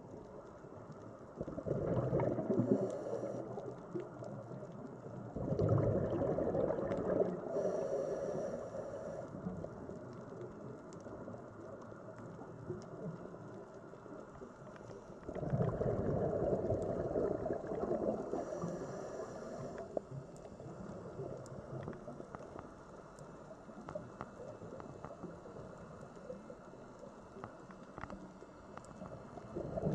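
Scuba diver's breathing underwater: bursts of exhaled bubbles gurgling out of the regulator, three times, each a few seconds long, with a faint hiss between them over a low watery background.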